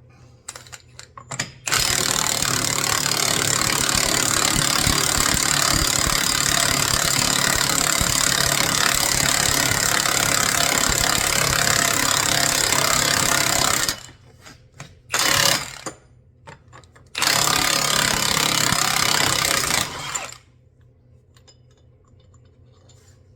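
Half-inch impact wrench hammering on the CV axle nut, one long run of about twelve seconds and then two shorter bursts, to break the nut loose.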